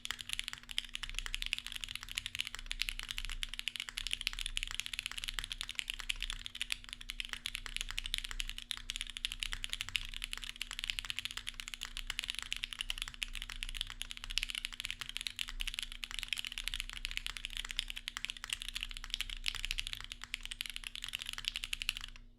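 Continuous fast typing on a Babylon custom mechanical keyboard with SP Star Meteor White switches, an undampened FR4 plate and GMK doubleshot keycaps: a dense run of keystroke clacks that stops suddenly just before the end.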